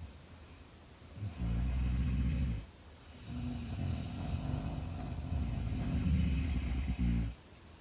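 A sleeping woman snoring: a low, fluttering snore starts about a second and a half in and lasts just over a second, then a longer one runs for about four seconds.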